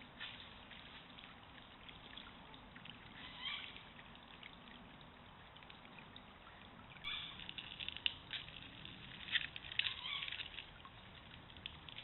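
Shallow stream water trickling over gravel, with a run of small splashes and clicks in the second half. There is one brief faint call a few seconds in.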